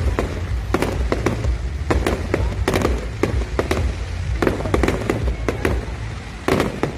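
Aerial fireworks display going off: a rapid, irregular string of bangs and crackles, several a second, with a louder cluster of bangs near the end.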